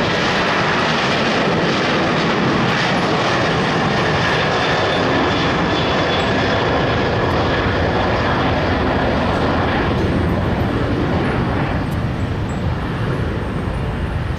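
Boeing 737 jet airliner's twin turbofan engines at takeoff thrust through the takeoff roll and lift-off: a loud, steady jet rush with a faint high whine, easing a little near the end as the plane climbs away.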